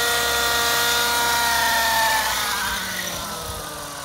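Gaui NX4 radio-controlled helicopter's motor and rotor whine, steady at first, then falling in pitch and fading from about two seconds in as the rotor winds down after touching down.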